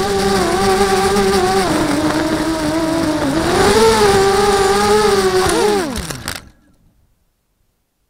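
Mini hexacopter's six Cobra 2204 2300kv brushless motors and propellers whining, the pitch wavering up and down with throttle, with air rushing over the onboard microphone. About six seconds in, the pitch falls away steeply as the motors spin down on landing, then near silence.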